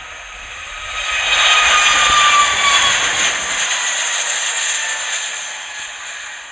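Airbus A321neo's CFM LEAP-1A turbofans at takeoff thrust as the jet climbs past: the roar swells to a peak about a second and a half in, then fades, with an engine whine dropping in pitch as it passes.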